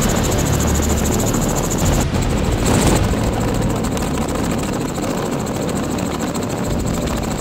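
Helicopter rotor and engine noise heard from aboard: a steady, rapid chop.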